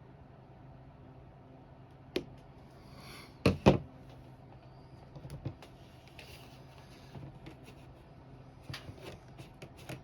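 Handling knocks and clicks: a sharp click about two seconds in, two loud knocks in quick succession a second and a half later, then scattered lighter clicks, over a steady low hum.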